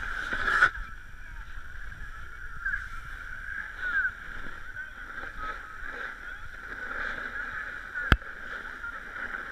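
Snowboard sliding and scraping over packed snow, with wind rumble on the camera and a steady wavering high-pitched tone over it. A sharp click comes about eight seconds in.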